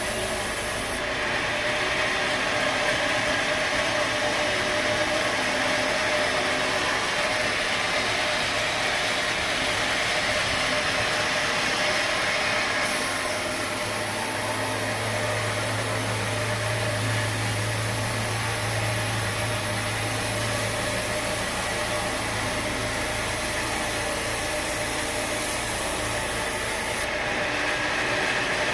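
Sawmill machinery running steadily, with a saw cutting through timber.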